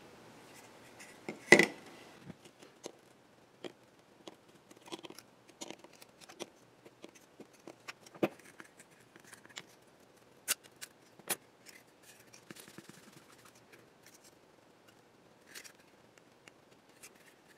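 Scattered small clicks, taps and scrapes of metal tabs on an Epson HX-20 LCD module's bezel being bent back and the circuit board being handled on a workbench. The loudest is a single knock about a second and a half in.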